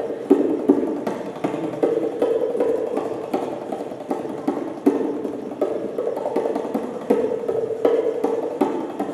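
Tabla and other hand drums playing a steady, evenly repeating rhythm of strokes that imitates a running train's wheels on the rails.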